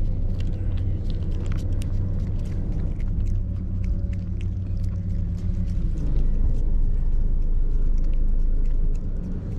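A steady low motor rumble that gets louder about six seconds in, with faint quick clicks of a cat licking paste from a squeeze-tube treat.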